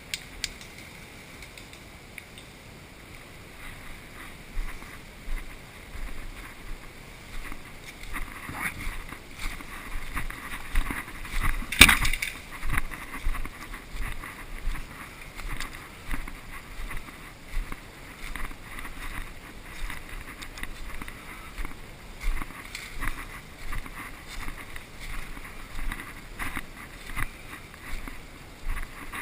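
Footsteps rustling and crunching through undergrowth, about one step a second, with a single sharp crack about twelve seconds in.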